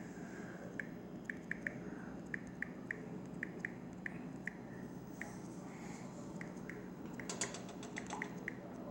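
Key clicks from typing on a smartphone's on-screen keyboard: short, irregular ticks, two or three a second, with a sharper cluster of clicks a little past seven seconds, over a low steady hum.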